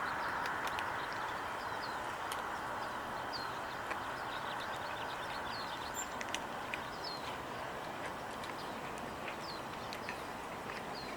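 Small birds chirping over and over in short notes, over a steady rushing background, with a few light clicks scattered through.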